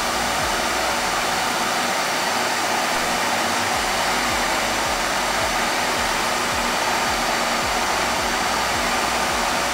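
Steady, even rushing noise that does not change.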